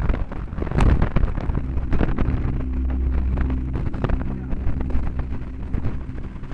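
Storm wind gusting across the microphone, a heavy rumble with many sharp crackles, over a steady low hum from a vehicle engine running.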